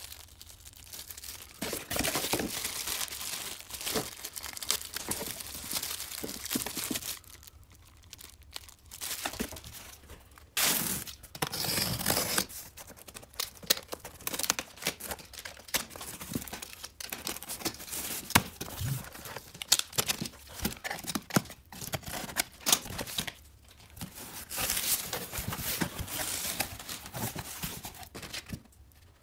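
Unboxing noises: a plastic parts bag crinkling at first, then packing tape being slit and torn along a cardboard box, with the cardboard flaps and pulp packing rustling as the box is opened. The sounds come in irregular bursts with short quiet gaps, the longest tearing stretch about midway.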